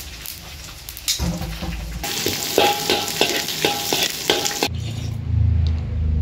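Aromatics stir-frying in a hot wok: a steady sizzle with a metal spatula striking and scraping the wok about three times a second. About three-quarters of the way through the sizzle stops and a low, steady hum takes over.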